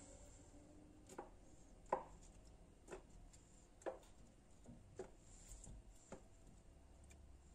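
Knife chopping on a cutting board: faint single strikes about once a second.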